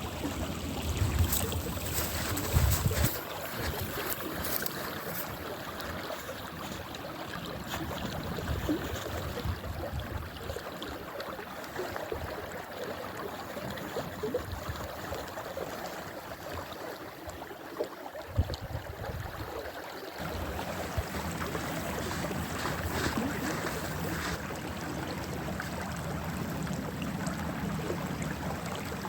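Wind on the microphone outdoors: a steady rushing hiss with low rumbling gusts, strongest near the start and again about two-thirds of the way in, and a few sharp crackles in the first few seconds.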